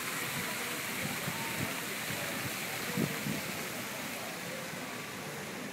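Steady rush of water from fountain jets splashing into a swimming pool, easing off slightly toward the end, with a brief thump about three seconds in.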